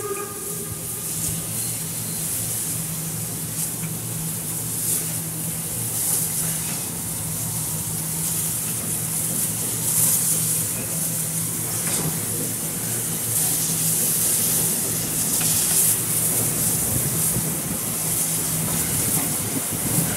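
Class 52 steam locomotive 52 8177 hissing steam steadily, the hiss swelling now and then, over a steady low hum.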